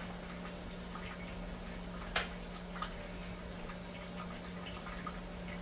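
Ground beef and tomato mixture simmering in a frying pan, giving faint scattered ticks and pops of bubbling over a steady low hum, with one sharper click about two seconds in.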